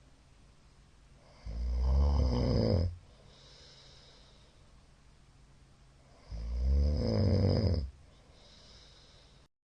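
A middle-aged man snoring, very loud: two long pitched snores about five seconds apart, each lasting about a second and a half, with quiet breathing between them. The sound cuts out abruptly just before the end.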